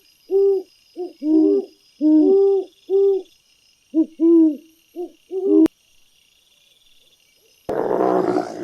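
An animal gives a rapid series of short hooting calls, about two a second, each note rising and then falling. After a pause, a loud, harsh call starts near the end.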